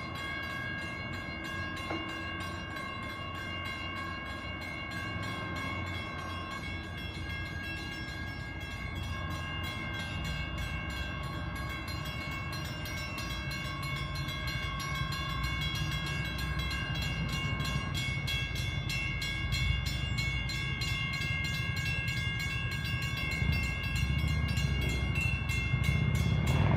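A steady high-pitched mechanical whine of several tones held together over a low rumble. The whine weakens near the end as the rumble grows louder.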